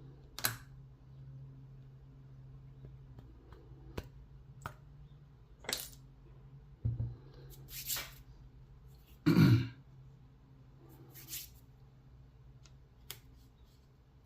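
Small metal parts of a brass padlock and the tools working on it being handled: scattered light clicks and taps, with a low thud about seven seconds in and a louder knock a little after nine seconds.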